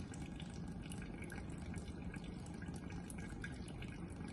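Thin jet of water from a lab tap arcing through the air and landing, a steady run of small splashes and drips.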